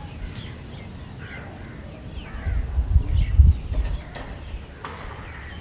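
Crows cawing repeatedly, short falling calls. A low rumble swells about two and a half seconds in and fades about four seconds in, louder than the calls.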